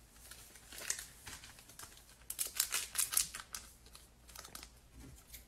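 Foil wrapper of a Donruss Optic trading-card pack crinkling and crackling as it is handled and torn open. The sharp crackles come in a dense cluster two to three seconds in, with a few more near the end.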